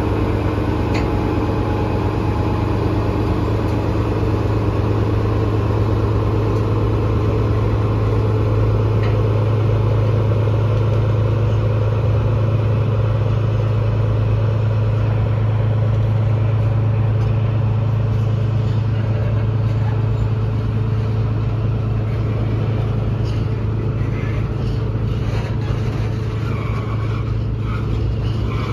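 Diesel shunting locomotive's engine running with a steady low drone as it hauls a train of tank wagons. From about halfway, clicks and squeals of the passing wagons' wheels on the rails join in.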